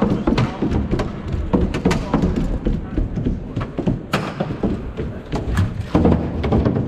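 Quadruped robot's feet thumping and clattering irregularly on the course terrain, with people talking in the background.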